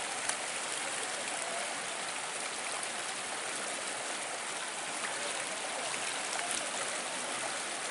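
River water flowing with a steady rushing hiss, with a few faint ticks over it.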